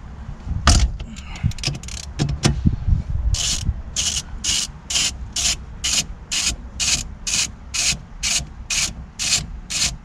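A ratchet wrench worked back and forth on the steering wheel's centre nut, a short raspy clicking stroke about twice a second, after a few irregular knocks in the first seconds. The nut is loosening: it is stiff but comes off.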